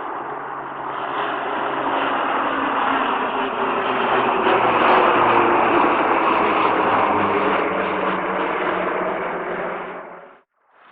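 Aircraft engine noise that grows louder over the first few seconds, holds steady with a low drone, then cuts off suddenly near the end.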